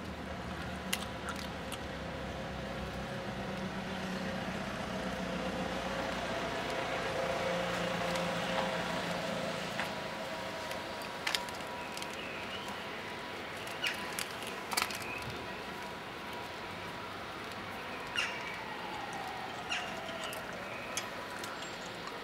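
Outdoor background hum, with traffic passing and fading, and a handful of sharp clicks. A tone falls in pitch near the end.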